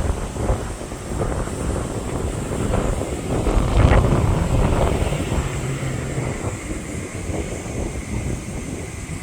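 Wind buffeting the microphone: an uneven low rumble that swells and fades, strongest around four seconds in.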